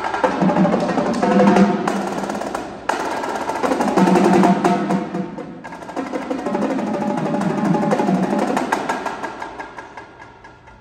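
Indoor percussion ensemble playing: drum rolls and drum hits over held pitched chords, in three swelling phrases that fade away near the end.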